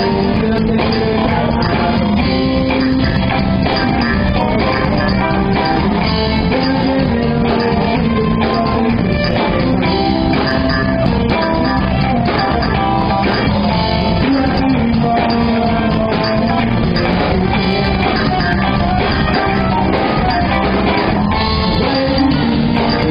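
Rock band playing live: electric guitar, bass guitar and drum kit together, continuous and loud.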